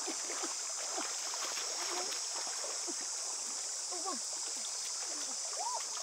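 Shallow stream water sloshing and splashing lightly as hands grope among the rocks, under a steady, high-pitched drone of jungle insects. Scattered short chirping calls come through now and then.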